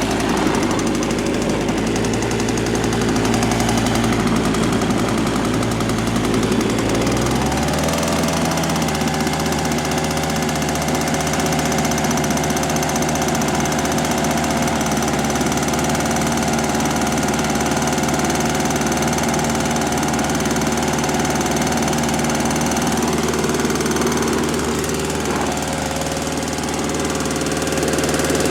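Toro Snowmaster 20 snow thrower's two-stroke engine running. About seven and a half seconds in, its speed picks up, and it then runs steadily at the higher speed.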